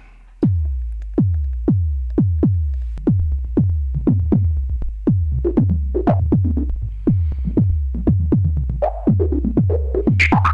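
Synthesized kick drum from a self-oscillating 101-style filter triggered by an envelope, each hit a pitch drop into a deep thump, repeating in a steady pattern. About halfway in, bursts of band-pass-filtered noise from a Feedback Static noise module join the hits, their tone shifting with each trigger from a sample-and-hold, and they grow louder near the end.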